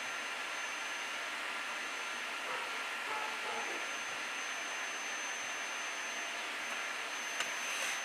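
Steady background hiss with a thin, faint high whine running through it, broken near the end by one sharp tap as a thrush strikes a snail shell on the stones.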